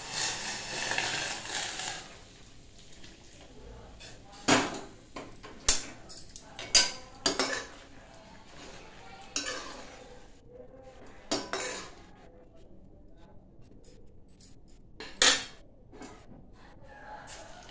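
Metal spatula stirring in a stainless steel kadai, with irregular sharp clinks and scrapes of metal on metal as the curry is turned. A soft hissing noise fills the first two seconds.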